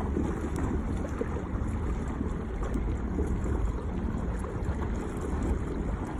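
Wind buffeting the microphone in a steady low rumble, over choppy lake water lapping and splashing.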